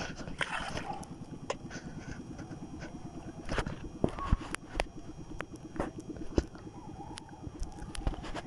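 Shimano Ocea Jigger F Custom 3000HG conventional reel cranked under the load of a hooked fish, giving a fast, even ticking from the gears, with scattered sharper clicks.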